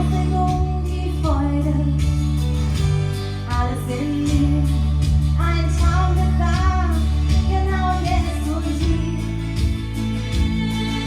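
A country song played by a band: a sung vocal line with held, wavering notes over steady bass and a regular drum beat.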